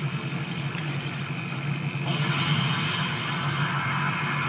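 Explosion sound effect from an animated battle scene's soundtrack, played through a TV's speakers: a continuous rumble that grows brighter and louder about two seconds in.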